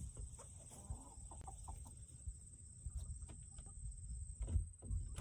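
Domestic hens clucking in short, scattered calls over a low, steady rumble, with a thin, steady high whine.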